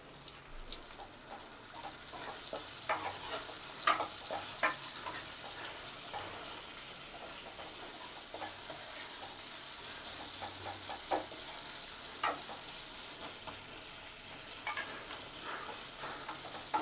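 Onions frying in hot mustard oil in a kadai, a steady sizzle, stirred with a spatula that clicks and scrapes against the pan now and then. The onions are being half-fried until soft.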